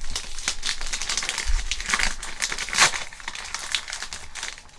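Gift wrapping paper crinkling and tearing as hands pull it open, in a run of irregular crackles with a louder crackle nearly three seconds in.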